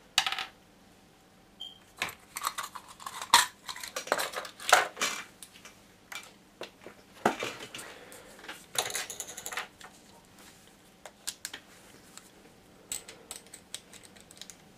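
Small metal hand tools and plastic model-kit parts clinking and clattering as they are picked up and set down on a workbench: an uneven string of sharp clicks and short rattles, with a longer rattle about nine seconds in.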